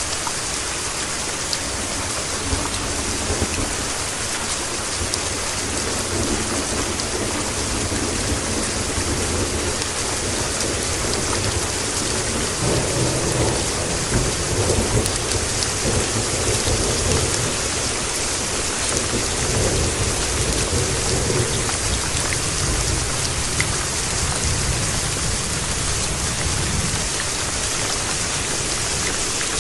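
Steady rain falling, with a long low rumble of rolling thunder through the middle.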